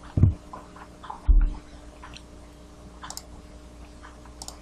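Two short, dull low thumps in the first second and a half, then a few faint computer mouse clicks, over a steady faint hum.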